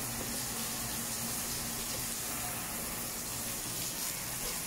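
Garden hose spraying a steady stream of water onto a mountain bike's wheel and frame, a continuous even hiss of spray.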